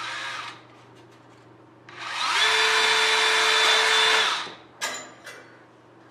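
Cordless drill with a 12-inch aircraft extension bit, drilling into an aluminium nose rib. A brief short run comes first, then a main run that spins up, holds a steady whine for about two seconds and winds down. Two light clicks follow.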